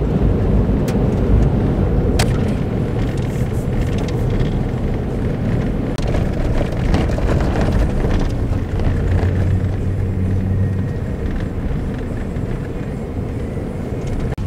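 Pickup truck driving on a dirt road, heard from inside the cab: a steady low rumble of tyres and engine, with a few sharp ticks.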